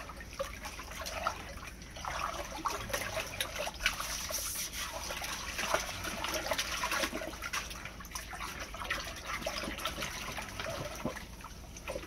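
Water sloshing and splashing in a sump pit as a scrub brush is worked round the liner walls, with irregular scrubbing and splashing strokes, loosening the iron ochre coating the pit.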